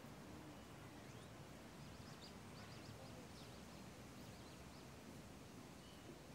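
Faint outdoor ambience: a low, steady background rumble with small birds chirping faintly, in a quick run of short high chirps from about two to four and a half seconds in.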